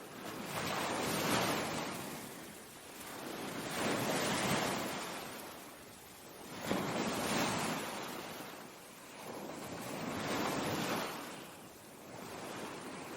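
Ocean waves breaking and washing in, the surf rising and fading in swells about every three seconds.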